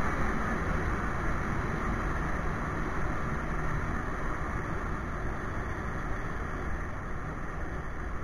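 Street motorcycle riding along a paved road: a steady rush of wind over the microphone mixed with engine and road noise.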